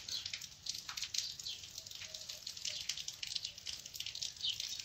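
Large fabric scissors cutting through folded cotton cloth: a string of quick, irregular crisp snips and crunches of the blades closing on the fabric.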